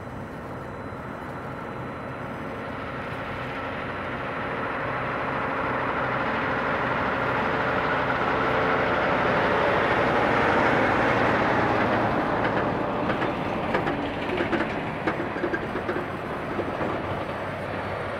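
Diesel semi truck with an empty-sounding dry van trailer driving slowly past. The engine and road noise build to their loudest about ten seconds in as the tractor passes. Then the trailer goes by with a run of loose knocks and rattles.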